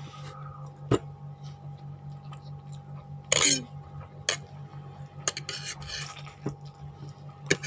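Noodles slurped off a fork in wet sucking bursts, about three seconds in and again near the end, with a few sharp clicks of metal cutlery against a plate. A steady low hum runs underneath.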